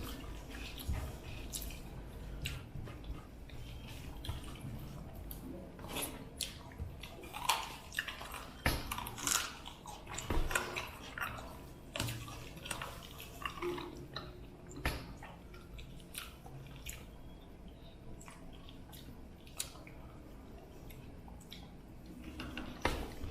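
Close-up eating sounds of a rice and fish curry meal: chewing and wet, squishy handling of the food, with scattered small clicks and knocks throughout.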